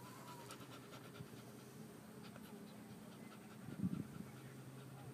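Pit bull's breathing, heavy after a walk and run, with one louder brief sound about four seconds in. A steady low hum runs underneath.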